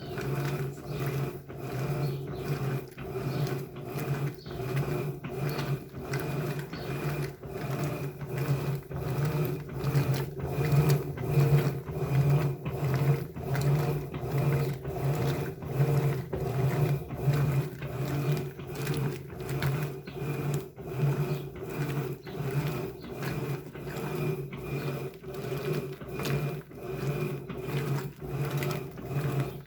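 Electrolux LBU15 top-loading washing machine agitating a load of rugs with turbo agitation on: a steady motor hum under a rhythmic back-and-forth swish of the agitator, about one and a half strokes a second.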